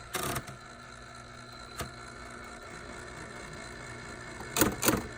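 Hermes typewriter's platen being turned to roll the paper up: a short ratcheting burst at the start, a single click a little before two seconds in, and two louder ratcheting bursts near the end, over a steady low hum.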